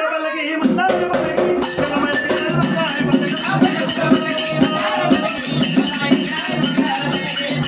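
Large metal-shelled barrel drum beaten in a steady rhythm of about three to four strokes a second, with metallic jingling percussion over it, as devotional folk music. The drum pauses for a moment at the start and comes back in about half a second in.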